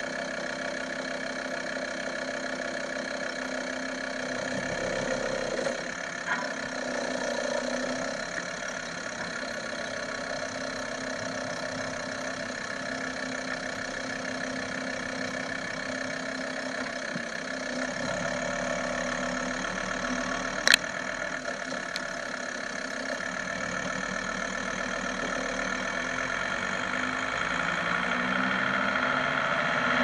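Volkswagen T4 2.5 TDI five-cylinder diesel engine running under way, heard from under the van with road noise, its note swelling briefly early on and getting louder near the end. A single sharp click about two-thirds of the way through.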